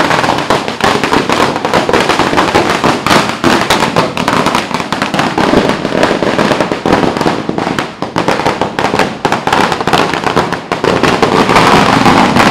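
A long string of firecrackers going off in a rapid, unbroken run of loud bangs, many a second.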